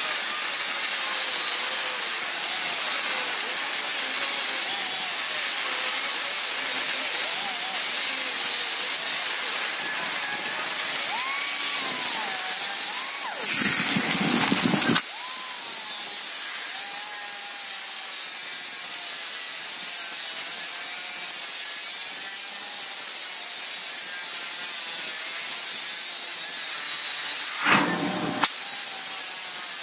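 Small cut-off wheel grinder grinding weld tacks flat on sheet-metal body panels: a steady high hiss and whine whose pitch wanders as the load changes. There is a louder burst of grinding about halfway through and a short one near the end.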